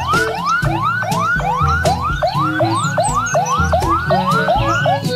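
Police car siren yelping: a rising sweep repeated about three times a second, with a lower stepped pattern running beneath it.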